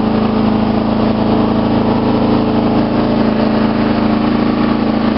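Riding lawn mower engine running at a steady speed while the mower is driven slowly.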